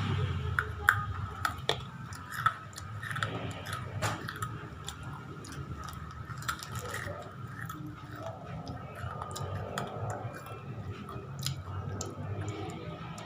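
A person chewing crisp spicy chips close to the microphone: wet munching with sharp crunches and mouth clicks, the crunches loudest in the first few seconds.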